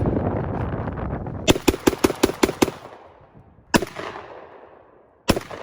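Gunshots with echo: a rapid string of about seven shots fired in just over a second, then a single shot, then another near the end, each trailing off in a long echo.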